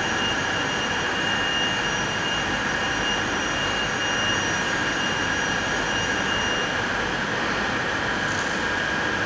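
A steady rushing drone with several high held tones on top, unchanging throughout.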